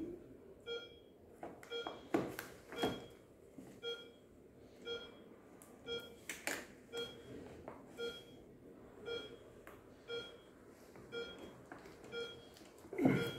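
An electronic beep, a short multi-tone chirp repeating about once a second, like a ward device sounding. Over it come a few louder rustles and knocks from handling the plastic infusion bag and IV set: two about two to three seconds in, one near the middle and one near the end.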